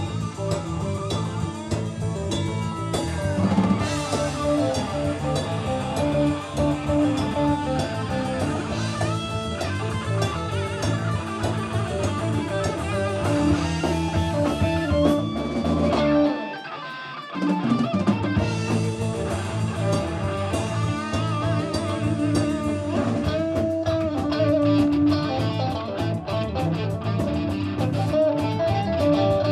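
Live rock band playing loud electric guitars over a drum kit. The band drops out briefly a little past halfway, then comes back in.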